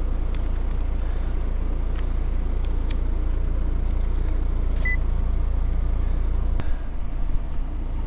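Coleman HC20 heat pump's outdoor unit running in heating mode shortly after start-up, its compressor and fan giving a steady low hum. A few light clicks, a short high beep about five seconds in and a knock near the end sit on top.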